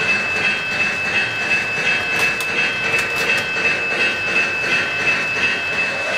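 Three-rail O-gauge model freight train rolling along the track, its wheels clicking in an even rhythm of about three beats a second over a steady high whine.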